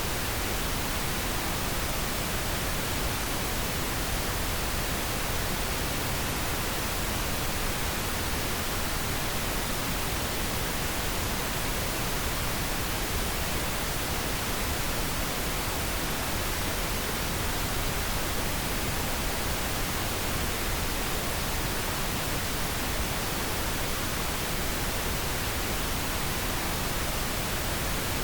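Pink noise: a steady, even hiss spread across all pitches, with no change or events.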